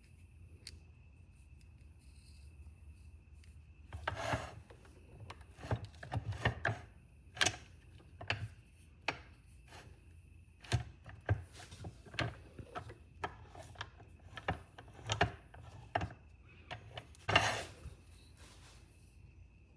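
Metal and wooden pen kit parts being handled and fitted together during assembly: an irregular series of sharp clicks and knocks, starting about four seconds in and stopping near the end, over a faint steady high whine.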